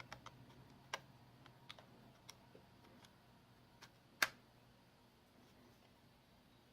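Faint small clicks and ticks of a pry tool working a Samsung Galaxy S5's USB port daughter board loose inside the phone, with one sharper snap about four seconds in.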